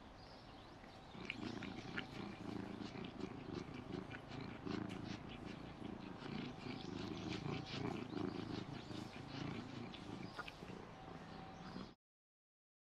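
Domestic cat purring, a low, fine, pulsing rumble that starts about a second in and cuts off abruptly near the end.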